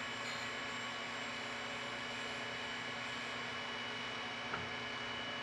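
Surface grinder running steadily, its spindle and wheel giving an even hum, with a single faint click about four and a half seconds in.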